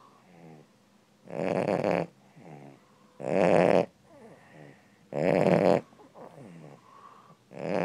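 A sleeping pet snoring deeply and regularly: a loud, rough snore about every two seconds, three of them plus a fourth starting near the end, with quieter wheezy breaths between.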